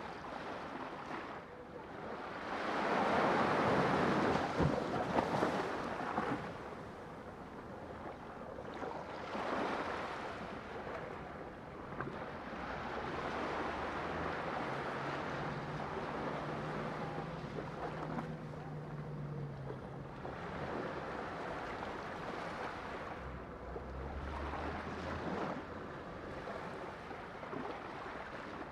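Sea waves breaking and washing in, several surges that swell and fade, the biggest a few seconds in.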